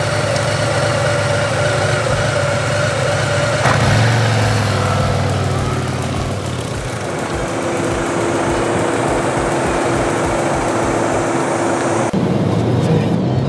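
Harley-Davidson V-twin motorcycle engine idling, then revving as the bike pulls away about four seconds in and running on as it rides off. The sound breaks off sharply near the end.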